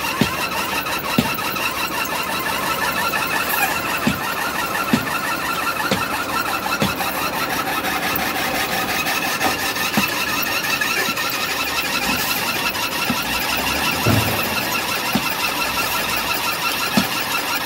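Aggregate conveyor belt running loaded, with a steady high squeal and a light knock about once a second. An engine runs beneath it.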